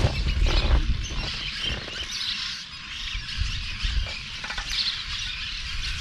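Birds giving a few short calls, about two seconds and five seconds in, over a steady high drone of cicadas, with a low uneven rumble underneath.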